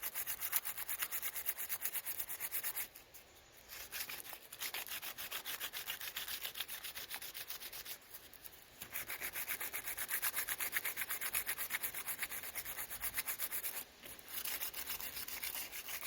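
120-grit sandpaper rubbed by hand over cured polyester gel coat on a fiberglass boat hull, in rapid short back-and-forth strokes. It stops briefly three times, about three, eight and fourteen seconds in, knocking down the patch.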